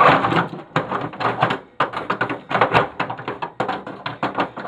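Channel-lock pliers working a small motor loose from a printer's plastic frame: a fast, irregular run of sharp plastic-and-metal clicks and clacks.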